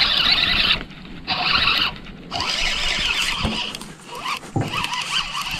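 Fishing reel whirring as it is cranked in four short bursts, with brief pauses between.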